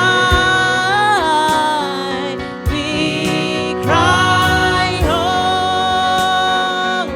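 Live gospel worship music: a voice holding long, drawn-out notes over a band, with drum hits.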